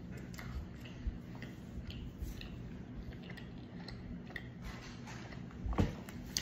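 Close-up chewing of a chicken taco: small wet mouth clicks about twice a second, with one louder thump near the end.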